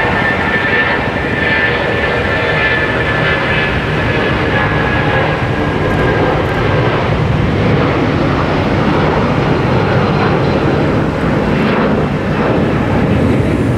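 Boeing 757 twin jet engines at takeoff thrust as the airliner rolls, rotates and climbs away: a steady loud roar, with a high whine that fades about halfway through.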